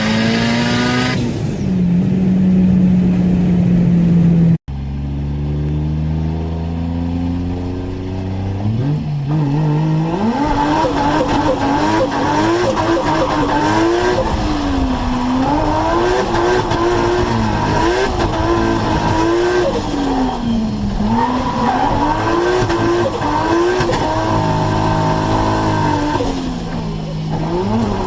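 Modified turbocharged car engines in two clips joined by a sudden cut. In the first the engine holds steady revs. In the second it revs up and falls back repeatedly, the pitch rising and dropping every second or two.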